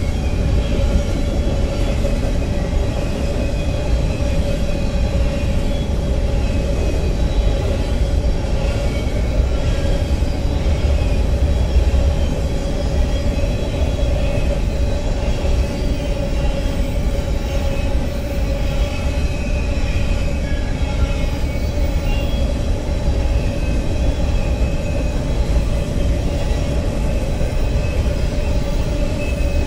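BNSF freight train of covered hopper cars rolling past, a steady rumble of cars and wheels on the rails, with a steady ringing tone running underneath.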